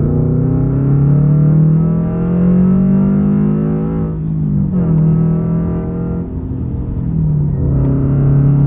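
2022 Toyota GR86's 2.4-litre flat-four accelerating through a JDL 3-inch single-exit exhaust, heard from inside the car. The pitch rises, drops at a gear change about four seconds in, climbs again, then eases off near the end.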